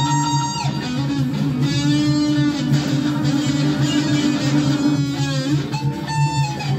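Electric guitar played through an amplifier: a picked riff with sustained notes that bend in pitch, over a steady repeating low pulse.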